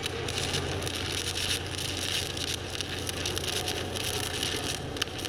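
Stick (SMAW) welding arc burning an aluminium electrode on aluminium plate during the first pass of a flat fillet weld: a steady crackling hiss over a low hum, with one sharper pop near the end.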